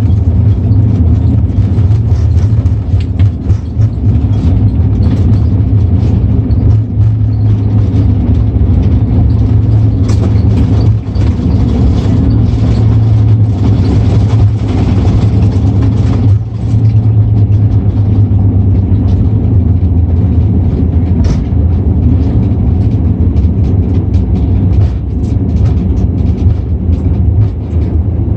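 Cabin noise inside an Airbus A340-600 airliner on its landing approach: a loud, steady low rumble of engines and airflow, with frequent short rattles and knocks from the cabin.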